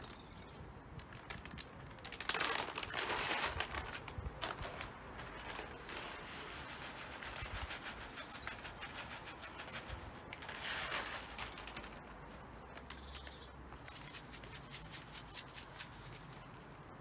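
Mealworms being tipped into a bird feeder: a rustling, rattling pour in two longer spells, about two seconds in and about ten seconds in, with small clicks and handling noise between.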